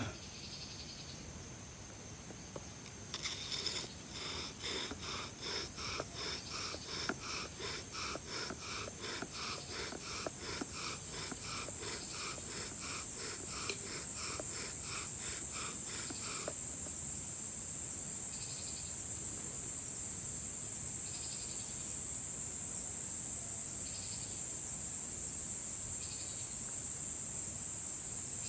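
Bow drill being worked: the wooden spindle rasps and squeaks in the hearth board with each back-and-forth stroke of the bow, about two strokes a second. It starts about three seconds in and stops a little past halfway. Crickets chirr steadily throughout.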